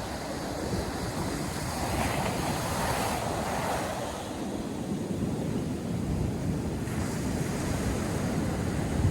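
North Sea surf breaking and washing on the beach, one wave swelling louder about two seconds in, with wind rumbling on the microphone.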